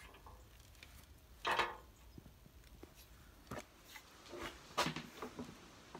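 A claw hammer knocking nails into a plywood box: several sharp, uneven strikes in the second half. A single short, louder sound comes about a second and a half in.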